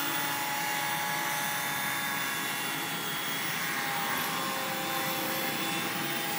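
Quadcopter hovering in position hold, its four Peak 2212 brushless motors and propellers giving a steady whine. Several tones drift slightly in pitch as the motors adjust their speed to hold position.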